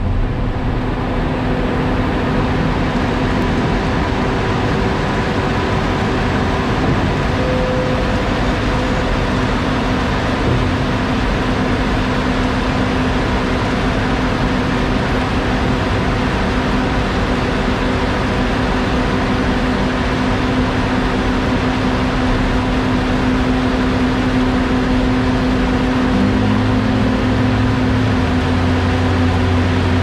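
Heavy diesel engines of a Roadtec asphalt paving machine and a dump truck running steadily as the truck unloads asphalt into the machine. A deeper engine note comes in near the end.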